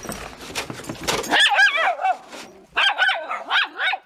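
A snow shovel scraping across a deck for about a second, then miniature schnauzers barking in high, wavering yaps at the shovel.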